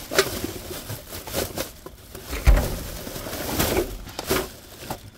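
Rummaging through trash in a dumpster: plastic bags and packaging rustling and crinkling, with scattered knocks of items being moved. A heavy thump comes about two and a half seconds in.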